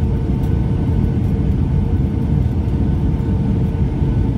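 Steady cabin rumble of a Boeing 757-200 heard from a passenger seat, the engines and airflow making a low, even roar with a faint steady hum over it.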